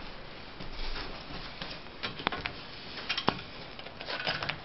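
A few light clicks and knocks with brief rustling between them, the sharpest knock about three seconds in: handling noise of a carpet power stretcher and its rail being set up on the carpet.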